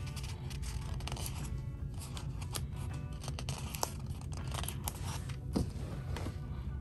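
Background music, over the papery crackle and rustle of sticker-book pages being turned and stickers being peeled off their sheet, with short sharp clicks throughout.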